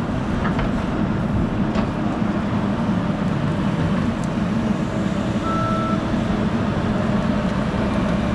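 Hyundai HT100V skid steer's engine running steadily, with a single short back-up alarm beep about five and a half seconds in.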